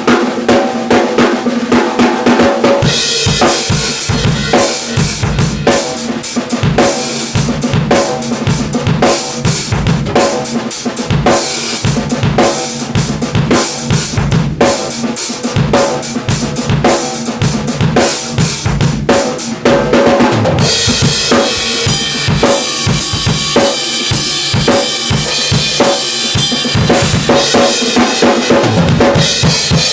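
Drum kit played in a continuous groove, the snare fitted with a fresh Evans HD Dry head that sounds crisp and snappy, along with bass drum and cymbals. Cymbals come in about three seconds in and get busier after about twenty seconds.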